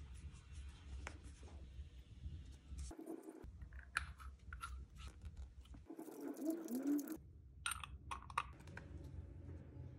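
Brass pipe fitting handled in the fingers while white PTFE thread seal tape is wrapped onto its threads: faint scratching, crinkling and small clicks, with a louder rubbing squeak a little past halfway.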